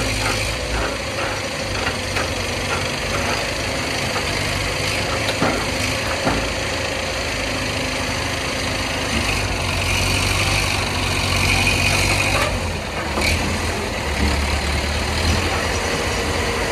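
Heavy diesel engine running steadily as the crane pulls the stuck loaded truck, a little louder for a couple of seconds in the middle.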